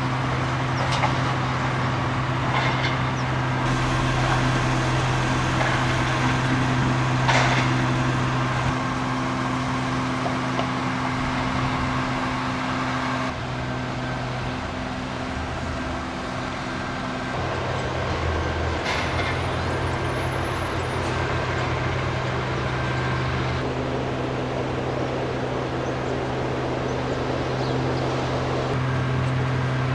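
Steady low drone of heavy machinery running, with a few brief knocks; the drone shifts abruptly a couple of times.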